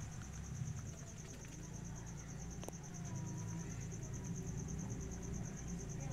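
A cricket trilling steadily in a fast, even, high-pitched pulse over a low background rumble, with one sharp click about halfway through.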